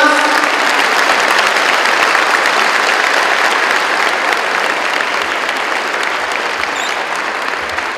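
Audience and players applauding, a steady wash of clapping that eases slightly near the end.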